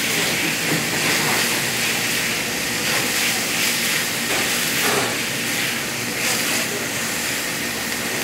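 Chicken strips and sliced onions sizzling in a frying pan, a steady hiss, while a wooden spatula stirs and scrapes them now and then.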